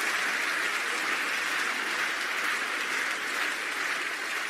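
Spectator crowd applauding steadily in an indoor arena, as a dense even clapping that eases off a little near the end.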